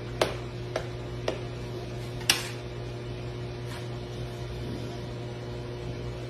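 Steady electrical hum with four or five light taps and clicks in the first few seconds, the loudest a little over two seconds in, as a dog's paw knocks against a plastic pet door flap.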